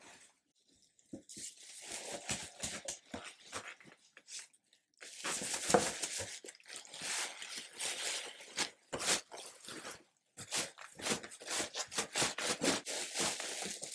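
Plastic wrapping crinkling and a cardboard box rustling and scraping in irregular handling noises as a plastic-wrapped heat press is worked out of its tightly packed shipping box. It is quiet for the first second, with a short lull around four seconds, and busiest from about five seconds in.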